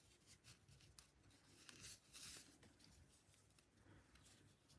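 Faint rustling of soft macrame cord rubbing through the fingers as it is pulled into a mounting knot, with a small click about a second in and a brief swish around two seconds.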